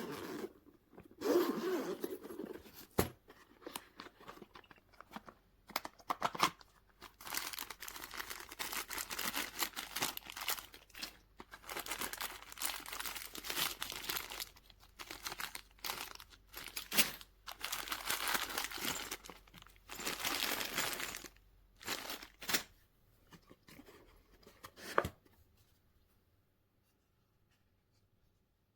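Irregular tearing and crinkling noises in short, uneven bursts, dying away about three seconds before the end.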